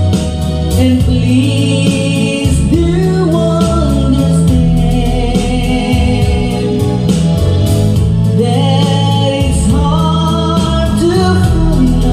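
A song with a sung melody over heavy bass and a steady drum beat.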